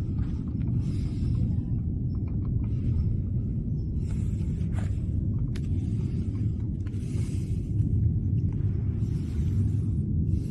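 A steady low rumble with a few faint clicks and knocks near the middle.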